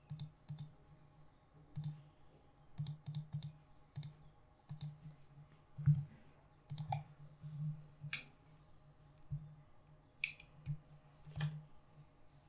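Scattered sharp clicks, about a dozen at irregular spacing and some in quick pairs or threes, from mouse clicks and a smartphone being handled at a computer desk, over a faint steady hum.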